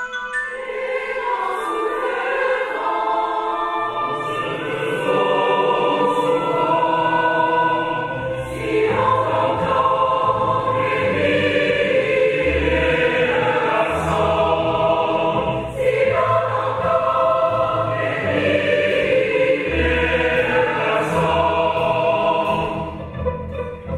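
Large choir singing sustained chords with an orchestra in a contemporary classical choral work. Lower parts join about four seconds in, and a deep bass about eight seconds in.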